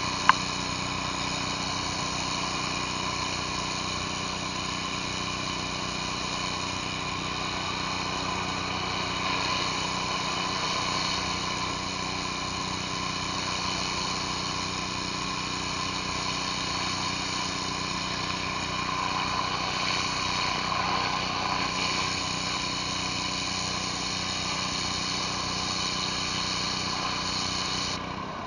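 Pressure washer engine running steadily, with the hiss of water from a surface cleaner working concrete. There is one sharp click just after the start.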